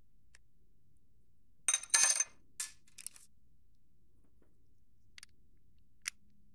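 Small metal parts clinking and rattling on the bench, a short burst with a ringing metallic chink about two seconds in. A few light clicks from handling the parts follow.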